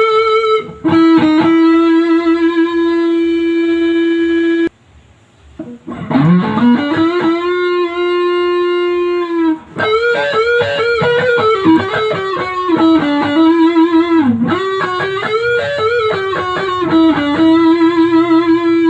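Electric guitar playing a lead melody: long held single notes with vibrato and string bends, with a brief break about five seconds in.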